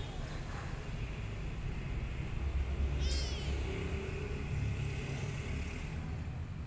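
A single short, high-pitched kitten meow about three seconds in, over a steady low rumble.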